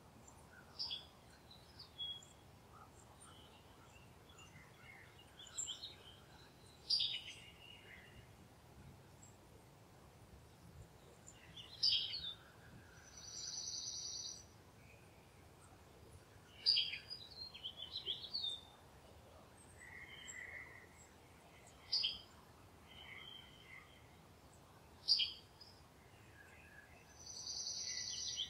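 Wild birds calling outdoors: short high chirps and brief twittering phrases every few seconds, with two buzzy notes about a second long, one midway and one near the end, over a faint steady background hiss.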